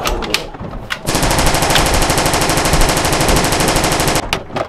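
Automatic rifle fire: one continuous rapid burst about three seconds long that cuts off abruptly, after two sharp clicks about a second earlier.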